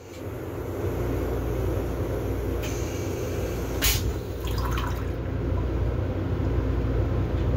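Metro-North M7 railcar toilet flushing: a steady rush of water and low motor rumble that starts suddenly and builds over about a second, with a sharp click about halfway through.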